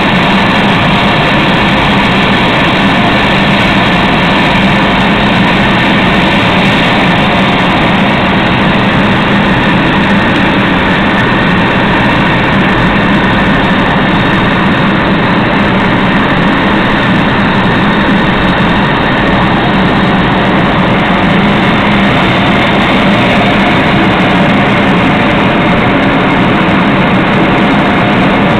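Jet airliner cabin noise at cruise altitude: steady engine and airflow noise heard from inside the cabin, with a steady low hum under it.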